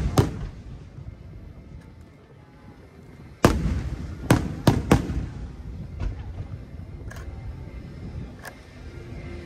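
Aerial firework shells bursting overhead. A bang comes right at the start, then a lull, then a loud burst about three and a half seconds in followed quickly by three more, and a few fainter bursts after that, each trailing off in a low rumble.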